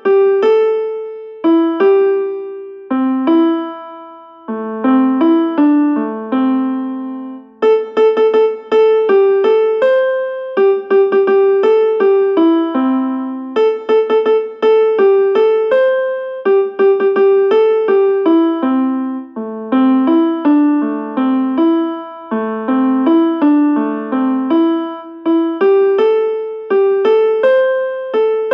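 A simple melody played note by note on a piano-like electric keyboard, each note struck and fading, a short cheerful phrase repeating every six seconds or so: a message ringtone tune.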